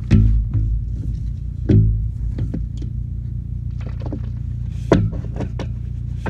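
Steady low engine hum at idle, with three dull knocks and some smaller clicks as PVC pipe is handled and shifted at its joint in the trench.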